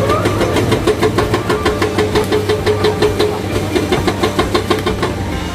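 Hydraulic breaker on an excavator hammering rock with rapid, evenly spaced blows over the excavator's running diesel engine. The blows fade out near the end.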